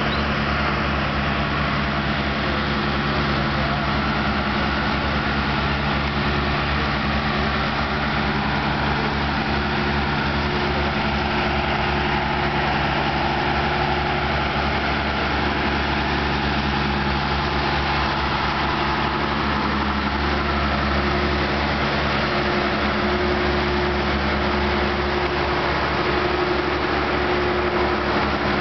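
An engine running steadily at an even idle, a low, unchanging drone.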